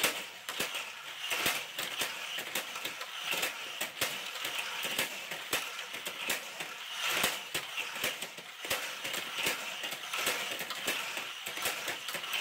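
Small die-cast toy cars running on a plastic race-set track: a steady rattling clatter with many sharp, irregular clicks.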